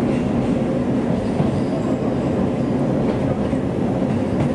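Steady running noise of a JR East Joban Line electric train heard from inside the passenger car: a continuous low rumble of wheels on rail and running gear while the train is in motion.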